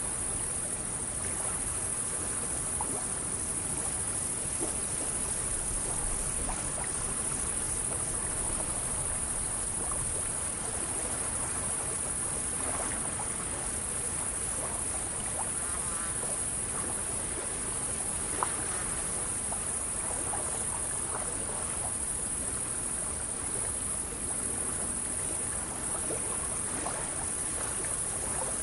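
A steady, high-pitched insect chorus, crickets and the like, over a soft wash of gently lapping lake water, with a few faint short chirps scattered through.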